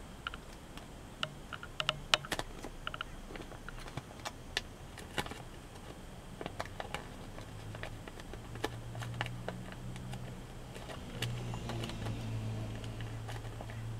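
Origami paper crackling and snapping in sharp, irregular clicks as fingers crease and press the folds. A low hum comes in about halfway through and grows louder near the end.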